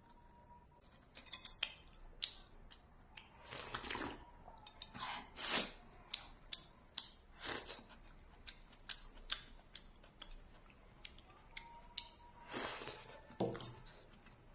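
A person eating noisily: many short, wet chewing clicks, with a few longer, louder mouth noises in between.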